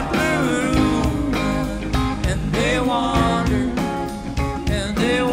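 Live rock band playing: drums, bass and guitars, with a lead melody line that slides up and down in pitch over a steady drum beat.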